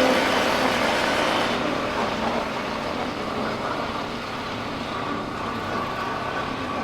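Riding noise from a motorcycle on the move: a steady rush of wind and road noise with the engine running underneath. The rush softens about a second and a half in.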